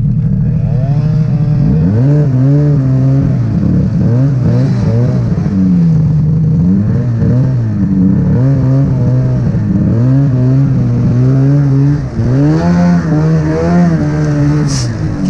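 Snowmobile engine running under constantly changing throttle, its pitch rising and falling again and again, with a few short sharp clicks near the end.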